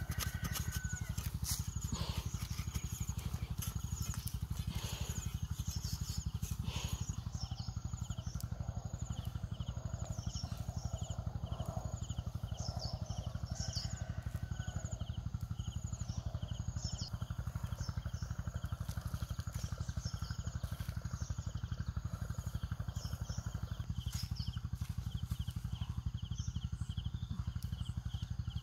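Small birds chirping in short calls over a steady low rumble. In the first several seconds there are scraping clicks and rustles as a knife digs into soil among carrot tops.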